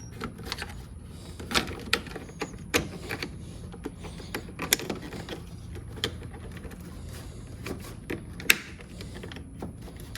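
Scattered irregular clicks and knocks of hand tools and metal parts being handled during work on the Jeep's fender, over a faint steady low hum.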